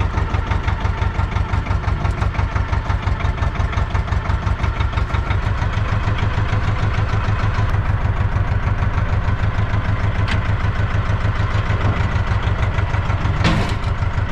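Ursus C-330 tractor's two-cylinder diesel engine running with a steady, even beat, heard from inside the cab as it works the front loader. It grows louder about halfway through, and a single sharp knock sounds near the end.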